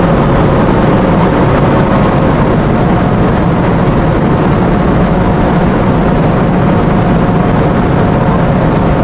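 Steady, loud machinery drone on a container ship's deck: an even rumbling noise with a faint steady hum over it, unchanging throughout.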